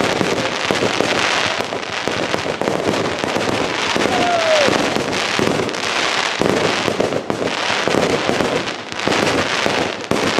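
Fireworks going off in a rapid, continuous barrage: dense crackling and many quick pops and bangs from shells and rising comets bursting overhead.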